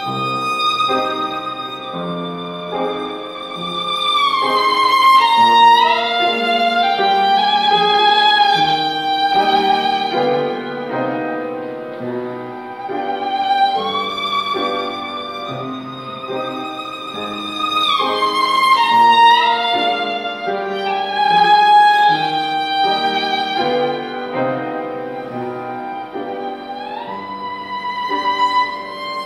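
Solo violin playing a slow, lyrical melody of long held notes with vibrato, sliding between notes, over a sustained chordal accompaniment. It swells loudest around a few seconds in and again in the middle.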